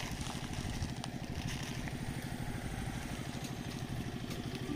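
Tractor engine running steadily with a rapid, even beat.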